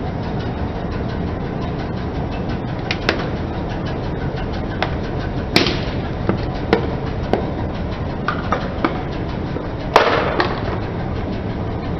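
Plastic long-nose utility lighter crushed under a slowly rolling car tyre, its plastic body cracking and snapping about eight times, the two loudest snaps about halfway through and near the end, over a steady low engine hum.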